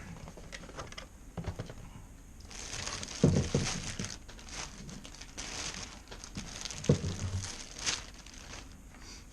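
Packaging crinkling and rustling as a gun conversion kit is unwrapped and handled, with two dull knocks, one about a third of the way in and one near three-quarters through.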